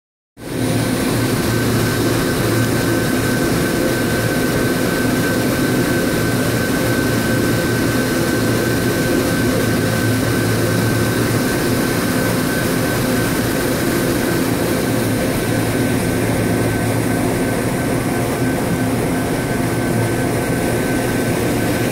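Steady running noise of a sternwheel paddleboat underway: a constant mechanical drone with a thin, steady high whine over it, together with the churning of the turning paddlewheel.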